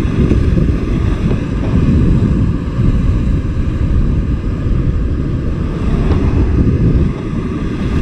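Wind buffeting the microphone over the wash of ocean waves against the rocks, a loud uneven rumble with no distinct knocks.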